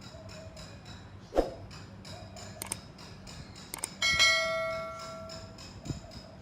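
Baby chicks peeping softly and repeatedly. There is one sharp short sound about a second and a half in, and a bell-like ring about four seconds in that fades over a second or so.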